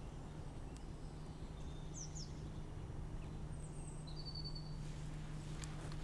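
Quiet outdoor ambience: a steady low hum with a few short, faint bird chirps in the middle and a single sharp click near the end.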